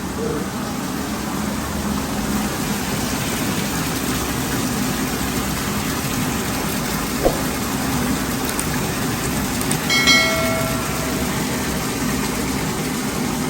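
Steady rush of waste water draining through a kitchen drain manhole whose grease clog has just been broken through. There is a single click about seven seconds in and a brief high tone about ten seconds in.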